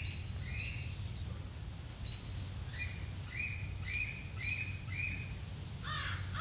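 Birds calling outdoors over a steady low rumble: scattered short chirps, then a run of five short notes at about two a second in the middle. Harsh crow caws begin near the end.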